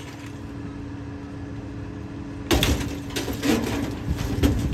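Garbage truck's engine running with a steady low hum; about halfway through, a run of irregular clanks and knocks begins.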